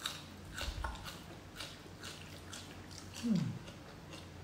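Close-up eating sounds of noodles being slurped and chewed, with small clicks and crackles in the first couple of seconds and a short falling hum about three seconds in.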